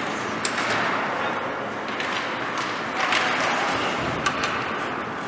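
Ice hockey play: skates scraping on the ice, with a few sharp clacks of sticks and puck about half a second, three seconds and four seconds in.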